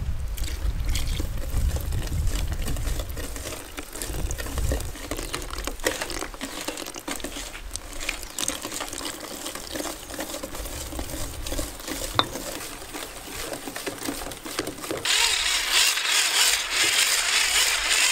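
Wire whisk stirring wet cake batter in a large steel bowl, with irregular small clicks, scrapes and sloshing. About three-quarters of the way through, an electric hand mixer with a whisk attachment starts up and runs with a steady whirr.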